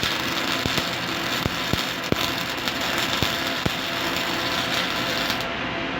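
CO2-shielded MIG welding arc crackling steadily, with scattered sharp pops from spatter.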